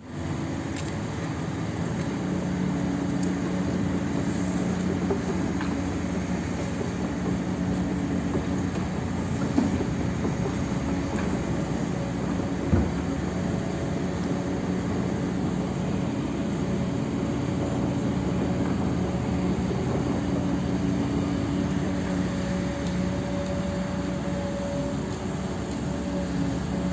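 Large excavator's diesel engine running steadily under load, a constant heavy drone, with two short knocks about ten and thirteen seconds in.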